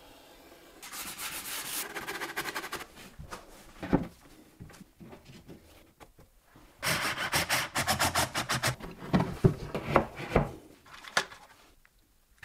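Rubbing and scraping on a chipboard shelf panel in two stretches of quick strokes, with a few sharp knocks in between.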